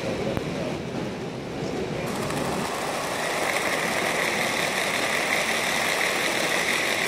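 Model train wagons rolling along the track, a steady rattle of small metal wheels on rail that grows louder from about two seconds in as the wagons pass close by.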